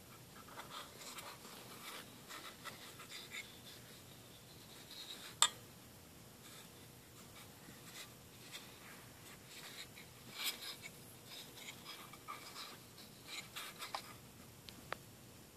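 Faint handling noise from an old 1957 Dodge truck speedometer being turned over in the hand: soft rubbing and scattered light clicks, with one sharper click about five seconds in and a small cluster of clicks about ten seconds in.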